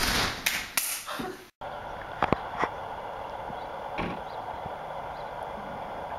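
A door banging and clattering, then a steady hum of a compact car's engine running, with a few light clicks and a knock.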